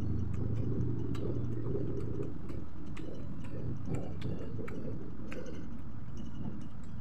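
A person chewing fried chicken, close to the microphone: irregular small clicks and smacks of mouth and food, over a steady low hum.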